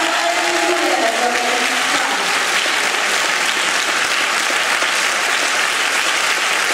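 Audience applauding steadily, with a few voices calling out over the clapping in the first couple of seconds.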